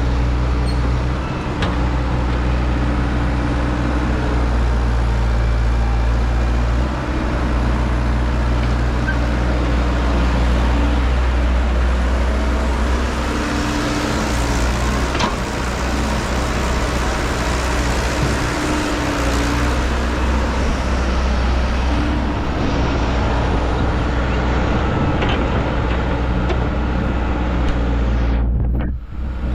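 Heavy machine's diesel engine running steadily, a low rumble with a constant pitch. It cuts out for a moment near the end.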